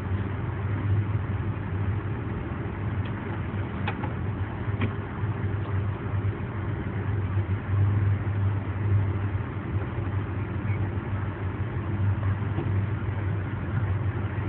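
A steady low engine hum with an even rushing noise over it, as of a running motor vehicle.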